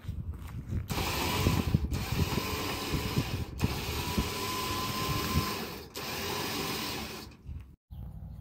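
Electric trailer winch running in several pulls with short stops, hauling a steel cargo box onto a flatbed trailer over log rollers, with low knocks from the load shifting. It stops near the end.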